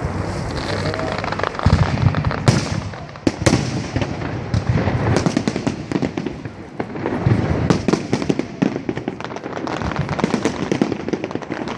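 Fireworks display: a dense run of bangs and booms with crackling, several heavy booms a couple of seconds in.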